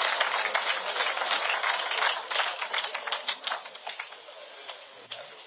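Audience applauding: dense clapping that thins into a few scattered claps and fades away over the second half.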